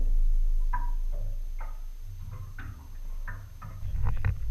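Low rumble of wind on the microphone, with a few short, faint clicks and ticks scattered through it.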